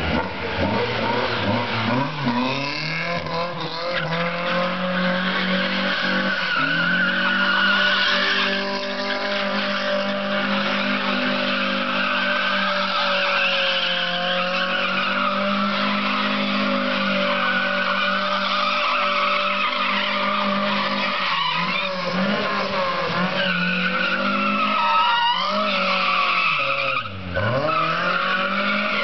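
Lada VFTS rally car drifting: its four-cylinder engine revving up and down under hard throttle while the tyres squeal and skid on the asphalt. The engine note dips briefly near the end, then picks up again.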